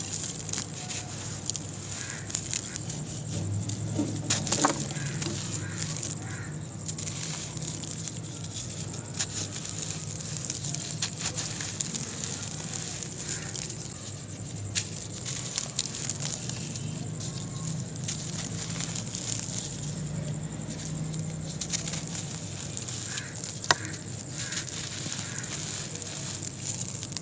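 Dry sand-cement balls crushed and crumbled by hand: gritty crunching and many small crackles as the lumps break, with a soft hiss of loose powder pouring through the fingers.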